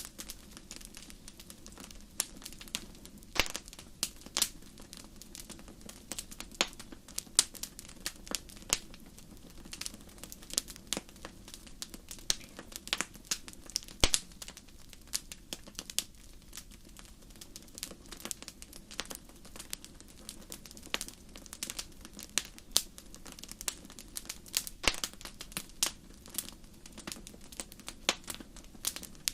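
Wood fire crackling in a fireplace: irregular sharp pops and snaps over a low steady hiss, one louder pop about halfway through.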